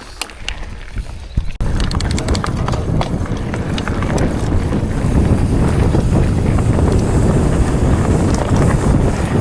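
Mountain bike descending a rough trail: a few light clicks, then about one and a half seconds in a sudden onset of continuous rattling and knocking from the bike over the ground, with wind rushing on the microphone.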